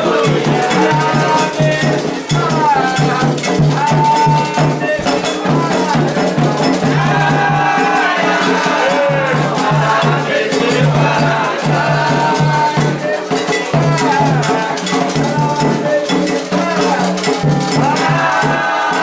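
Candomblé chant: voices singing over drums and a struck metal bell (agogô) keeping a steady rhythm.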